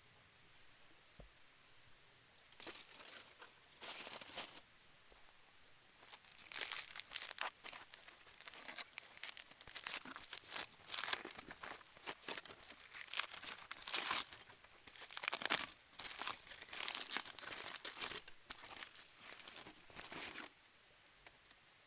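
Crinkly wrapping being crumpled and torn open in irregular bursts, as a roasted sweet potato is unwrapped.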